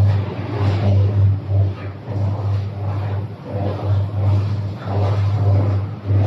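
Electric arc furnace arcing: a loud, uneven crackle that swells and dips over a steady low hum.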